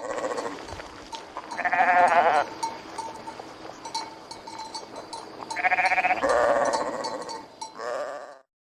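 Sheep bleating: several quavering bleats, the loudest about two seconds in and about six seconds in, with a shorter one near the end.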